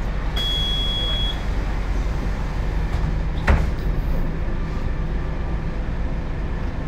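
Scania K280UB bus's five-cylinder diesel engine idling steadily, heard from inside the passenger cabin; the uploader calls the engine unhealthy sounding. A short high beep sounds for about a second near the start, and a single sharp knock comes about halfway through.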